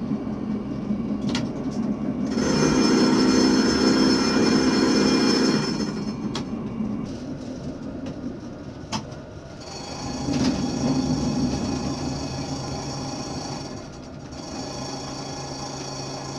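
A tram running on its rails, heard from the cab. A loud, steady, many-toned sound holds from about two to six seconds in, and a high steady whine sets in about ten seconds in, with a few sharp clicks between.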